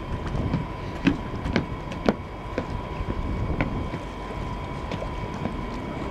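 Wind rumbling on the microphone, with a faint steady high whine and a few sharp clicks in the first few seconds.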